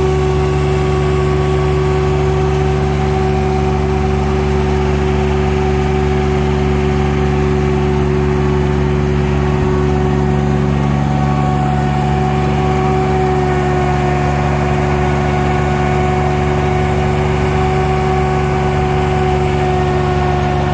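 Self-propelled orchard air-blast mist sprayer running steadily, its engine and spray blower holding one constant, unchanging pitch while it sends out a cloud of spray mist.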